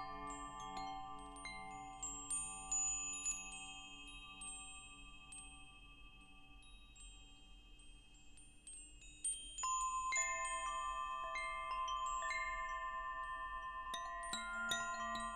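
Wind chimes ringing: clear tones struck at irregular moments and left to ring on. The strikes thin out for a few seconds in the middle, then a new cluster of notes is struck about ten seconds in.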